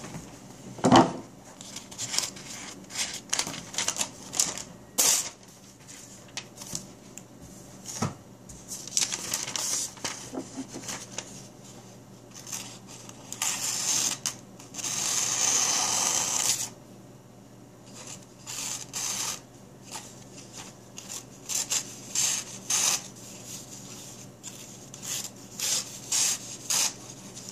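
Paper rustling and the blade of a Kershaw Cryo folding knife slicing into a thin phone-directory page, a paper-cutting test of the knife's edge: irregular short scraping rasps, with one longer drawn-out cut about halfway through.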